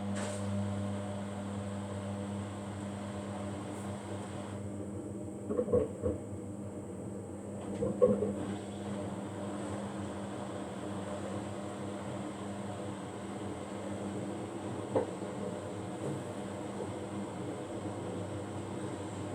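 Microwave oven running with a steady low hum, heating a mug cake in short bursts. Two clunks about six and eight seconds in and a sharp click near fifteen seconds.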